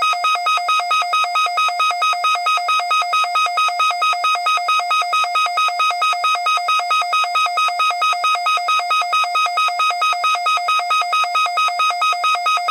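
Synthesized emergency-alert attention tone: a high and a low pitch sounding together in a fast, even pulse, loud and buzzy. It is the signal that an emergency broadcast message is about to follow.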